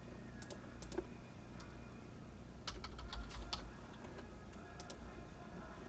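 Faint typing on a computer keyboard: scattered single keystrokes, with a quick run of several keys about three seconds in, over a low steady room hum.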